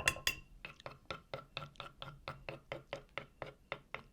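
Rapid, even run of light knocks, about five a second, of a kitchen utensil striking a bowl while the tomato sauce is worked.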